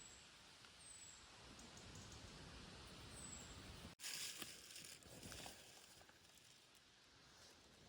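Quiet forest ambience with a few thin, high, falling bird chirps in the first half. About four seconds in the sound drops out for an instant, then a short stretch of rustling follows.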